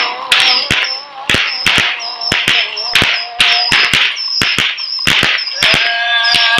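Fireworks going off in a rapid string of sharp bangs, about two or three a second, with a wavering tone underneath.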